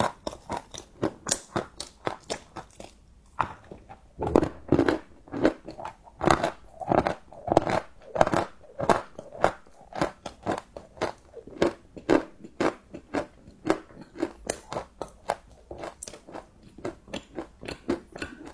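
Close-miked chewing of crunchy chocolate: a steady run of crunches, about three a second. A short pause comes about three seconds in, followed by louder crunching.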